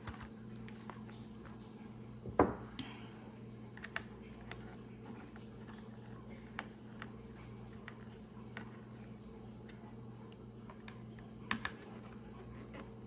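Scattered small clicks and ticks of a screwdriver working the small screws out of a plastic Elcaset cassette shell, with a louder knock about two and a half seconds in and another near the end. A steady low hum runs underneath.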